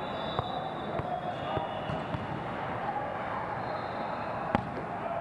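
Din of a large indoor hall full of volleyball games: many overlapping voices, with scattered sharp hits of volleyballs being struck. The loudest hit comes about four and a half seconds in.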